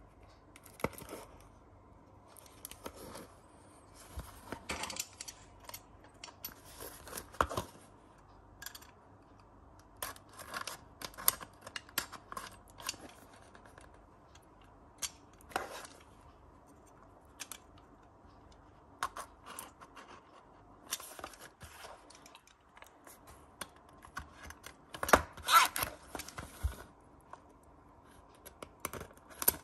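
Utility knife blade cutting and scraping at the seal of a small cardboard toy box, with the box being handled: short, irregular scratchy strokes, loudest about 25 seconds in.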